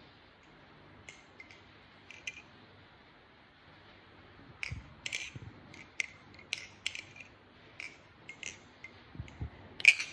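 A Bowie Kraken clone balisong (butterfly knife) being flipped: its handles and blade click and clack against each other. A few light clicks at first, then quicker, louder clacks from about halfway, the loudest near the end.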